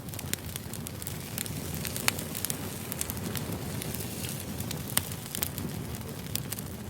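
Firewood burning: a steady low rumble of the fire with scattered sharp crackles and pops, two louder pops about two and five seconds in.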